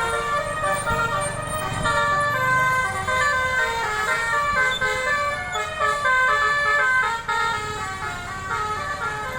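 Bus 'telolet basuri' multi-tone musical air horn playing a tune, its notes stepping quickly up and down in a continuous melody.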